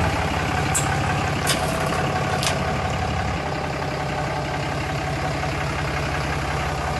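Diesel dually pickup truck's engine running at low speed as the truck pulls forward, a steady low rumble. A few faint clicks come in the first couple of seconds, and the engine note eases slightly about three and a half seconds in.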